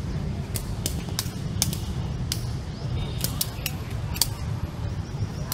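Sharp, irregular snaps of a feathered shuttlecock being kicked back and forth in a fast one-touch rally, about two a second, over a steady low rumble.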